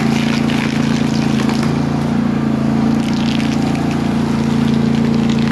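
A machine runs with a steady low hum, under an uneven crackling scrape of broken floor tile being pushed across concrete.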